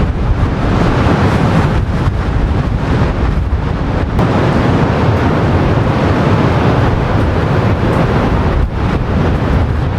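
Rough winter surf breaking and rushing during a storm, with strong wind buffeting the microphone.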